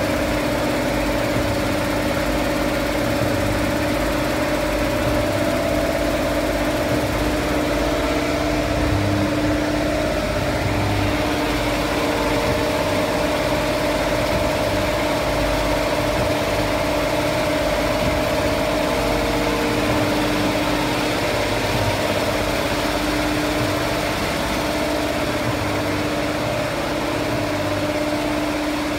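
Multi-needle quilting machine running at speed, giving a steady mechanical hum with a dense, even clatter from its needle bar.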